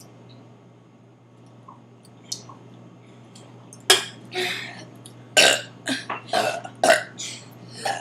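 A person burping: a rapid run of short, sharp burps starting about four seconds in, after a quiet stretch with a few faint clicks.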